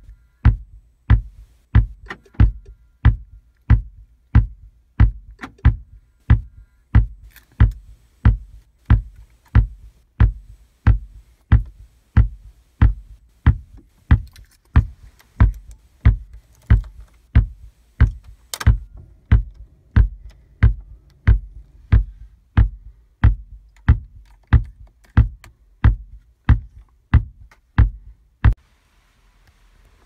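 Volkswagen RNS510 radio/nav unit caught in a startup loop, sending a low thump through the car's speakers nearly twice a second, evenly paced. The thumping cuts off suddenly near the end when the battery is disconnected. The fault lies in the unit's PIC16 chip, which needs re-soldering.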